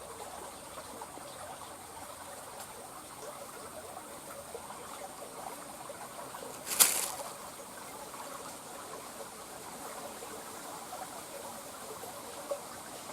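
Faint water trickling and lapping, with a faint steady high tone above it. About seven seconds in there is one short, sharp noise.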